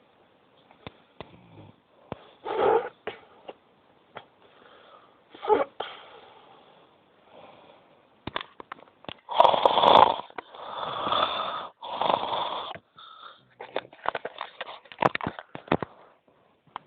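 A sleeping person snoring loudly and irregularly. Single snores come a few seconds apart, then three long snores in quick succession about two-thirds of the way in.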